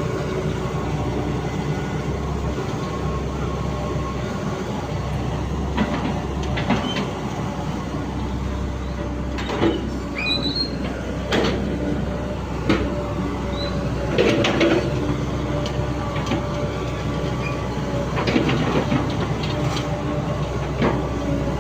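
Hitachi Zaxis 138MF excavator's diesel engine running steadily under work, with irregular metallic clanks and knocks from the machine every second or two.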